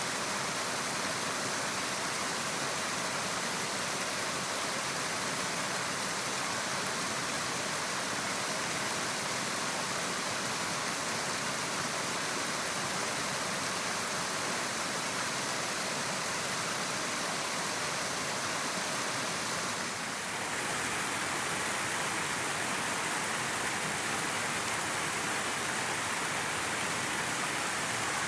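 Flowing river water, a steady even rush; it dips briefly and changes slightly in tone about twenty seconds in.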